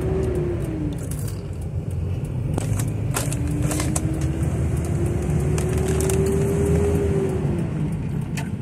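Car heard from inside the cabin while driving: a steady low road and engine rumble, with the engine note rising slowly over several seconds and dropping away near the end as the car speeds up and then eases off.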